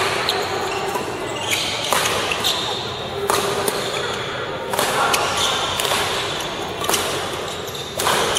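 Badminton rally: about five sharp smacks of rackets striking the shuttlecock, a second or two apart, ringing in a large hall, with sneakers squeaking on the court floor between shots.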